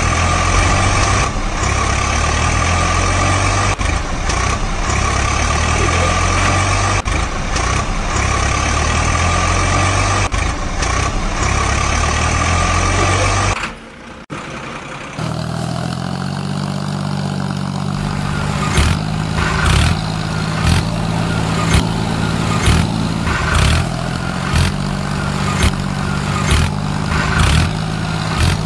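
Heavy vehicle engine sound running steadily. It drops out for about a second and a half around the middle, then resumes as a steady low hum with a regular knock under it.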